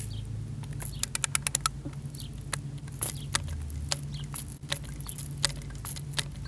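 A quick run of about eight small sharp clicks about a second in, then single clicks every second or so.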